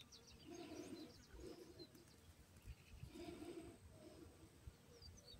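Faint outdoor background: a dove cooing in low repeated hoots, with small birds chirping faintly.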